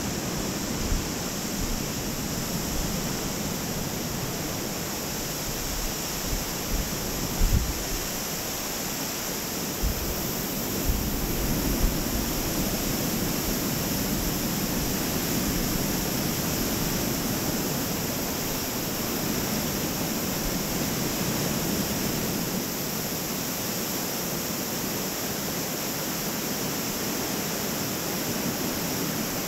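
Steady rushing of the Carbon River over its rocky bed below a suspension bridge, with a few short low thumps in the first half.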